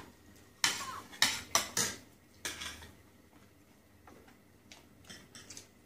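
Cutlery clinking and scraping against ceramic plates and bowls during a meal: a quick run of sharp clinks in the first two and a half seconds, then only faint light taps.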